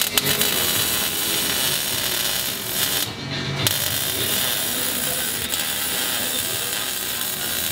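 MIG welding arc crackling steadily as the new exhaust pipe is welded under the truck, with a short break a little past three seconds in before the arc is struck again.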